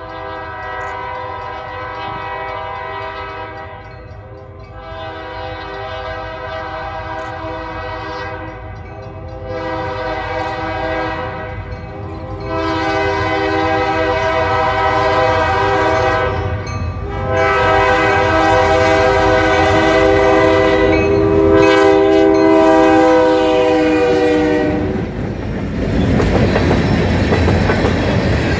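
Approaching diesel freight locomotive sounding its multi-note horn in a series of long blasts with one shorter one, growing louder as it nears. From about 25 seconds in the horn stops, and the locomotive and loaded freight cars rumble and clack past close by on the rails.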